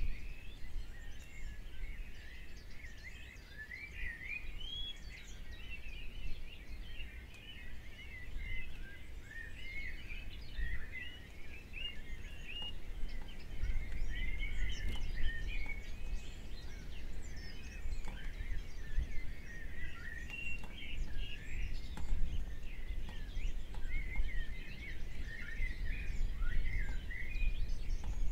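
Birds chirping and twittering continuously, many short quick calls overlapping, over a low rumble of outdoor background noise.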